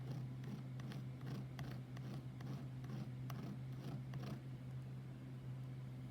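Metal ring edge rubbed along a flat hand file in repeated short scraping strokes, filing it flat for soldering to a bezel back. A steady low hum runs underneath.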